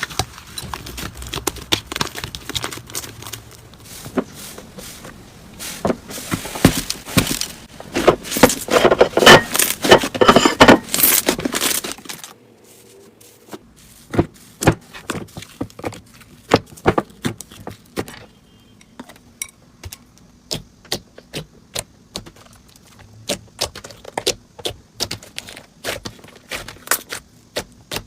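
Slime being squished and poked by hand, giving dense runs of crackles and clicks that are loudest and busiest from about six to twelve seconds in. After an abrupt change about twelve seconds in, the clicks and pops are sparser and sharper.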